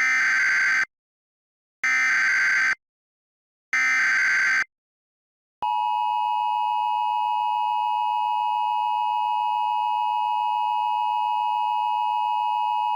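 Emergency Alert System tones: three short bursts of the SAME digital header, each just under a second long and about two seconds apart. After a second's gap the steady two-tone EAS attention signal starts and holds unchanged. Together they mark the start of an emergency alert broadcast.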